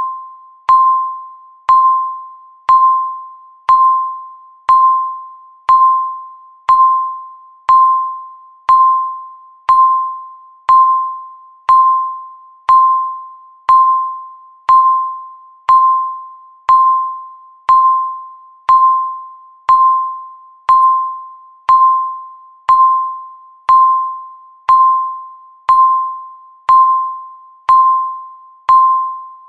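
Countdown timer's electronic tick beep, sounding once a second: a single clear tone that strikes sharply and fades away before the next one, in an even, unbroken rhythm.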